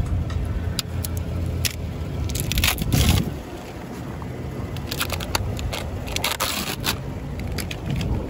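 Chevy Silverado pickup idling as its front wheels are turned to full lock, with scraping and crunching from the new tires scrubbing over the ground in irregular bursts, loudest about three seconds in.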